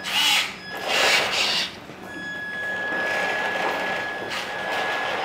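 An RC scale military truck's electric motor and gears whirring: two short bursts, then a steady whine for about three seconds.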